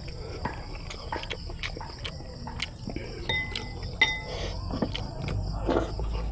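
Close-miked chewing and mouth sounds of someone eating rice and chicken by hand, with many small sharp clicks. A low rumble comes in about five seconds in.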